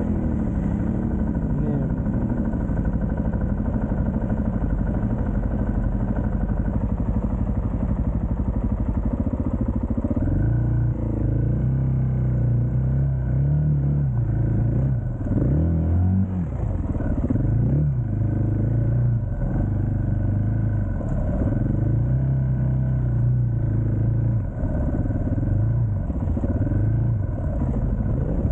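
KTM 690 single-cylinder engine idling, then ridden off about ten seconds in, louder, with the revs rising and falling over and over as the throttle is opened and closed.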